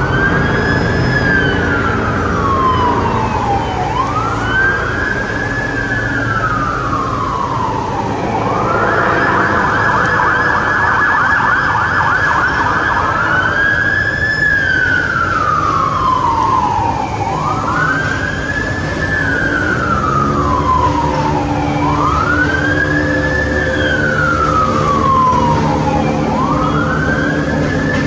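Ambulance siren on a wail: each sweep rises quickly and falls slowly, repeating about every four seconds. About eight and a half seconds in, it switches to a fast warble for about four seconds, then goes back to the wail. Road traffic runs underneath.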